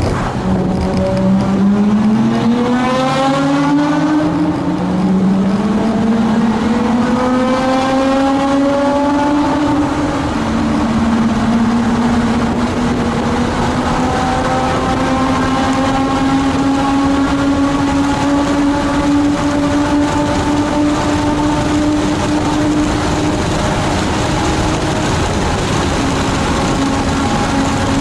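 Nissan Skyline GT-R (BNR32) RB26DETT twin-turbo straight-six at full throttle through an Amuse R1 full-titanium exhaust on an equal-length REIMAX front pipe. The engine note rises with each gear, dropping at upshifts about four and ten seconds in, then climbs slowly in a higher gear and levels off near the end.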